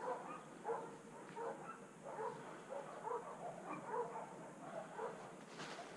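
A dog barking repeatedly at a distance, short barks coming about every half second to second, with one sharp click near the end.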